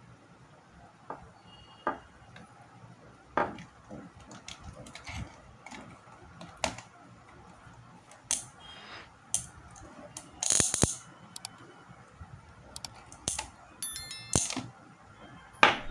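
Scattered clicks and taps of stiff wire ends of a fan capacitor being handled and pushed into a power strip socket to charge the capacitor from the mains. The loudest sharp snap comes right at the end.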